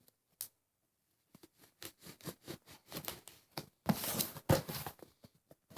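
A cardboard shipping box being cut and torn open by hand: a run of short scratching strokes that comes faster and louder, then louder tearing and rustling near the end.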